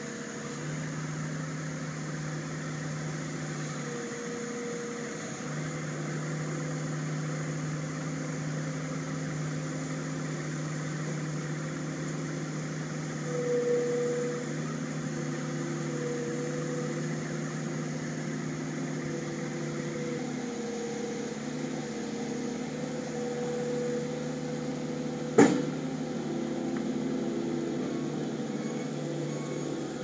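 New Holland LS170 skid steer's diesel engine running steadily while its loader arms and bucket work, a higher hydraulic-like tone coming and going over the engine note and swelling briefly about halfway through. A single sharp bang near the end.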